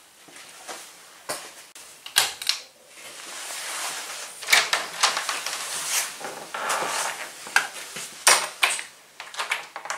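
An interior door being opened by its knob, with scattered knocks, clicks and rustling as someone handles it and moves through the doorway.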